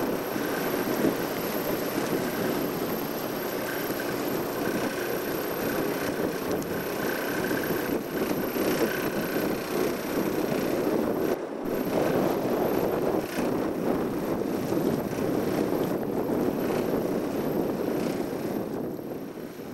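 Strong wind rushing over a camcorder microphone above choppy water: a steady, dense rushing noise with a brief dropout about halfway through, fading out at the end.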